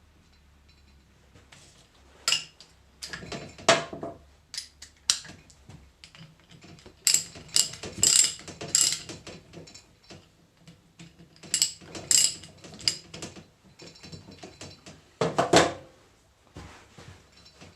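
Ratchet wrench clicking in short bursts of strokes, with pauses between, as bolts are run in on a hydraulic control valve during reassembly.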